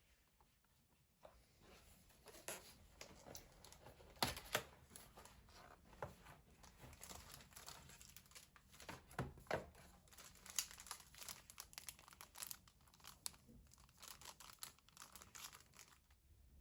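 Soft crinkling and rustling with many light clicks and a few sharper snaps, starting about a second in and stopping just before the end, as of something crinkly being handled close by.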